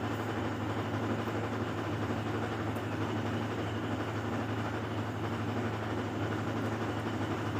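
Washing machine running: a steady low hum under constant mechanical noise. It is loud because the machine is broken down.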